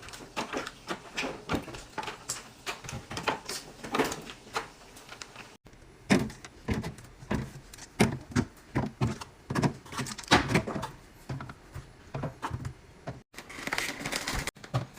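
Irregular clicks and knocks of plastic containers and jars being handled, set down and slid into place in a fridge, several a second, breaking off abruptly a few times.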